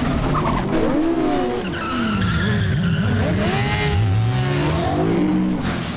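Several sport motorcycle engines and a car engine revving up and down, their overlapping pitches rising and falling, with tyres skidding.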